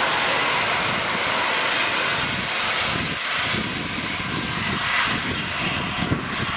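Steady, loud rushing noise of a train running at speed, with some uneven low rumbling in the second half.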